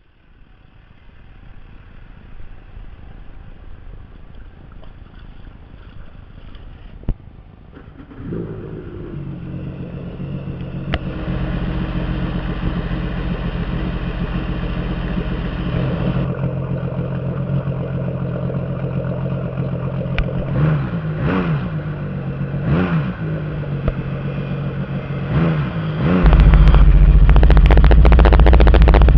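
Supercharged four-stroke engine of a Sea-Doo RXT-X jet ski, breathing through a Riva water box and Rude exhaust tip, starts about eight seconds in and runs steadily. It is revved briefly a few times, and near the end it gets much louder and lower.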